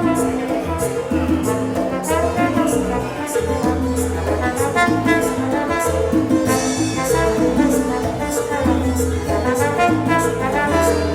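Background music with brass and a steady beat, in an upbeat Latin style.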